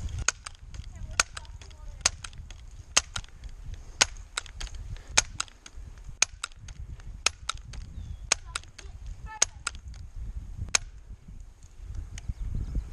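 BB gun firing repeatedly in sharp cracks, roughly one a second, with fainter clicks in between; the shots stop a couple of seconds before the end.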